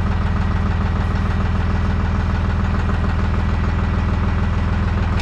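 Deutz-Fahr 55 F tractor's diesel engine idling steadily, with an even, fast low pulse.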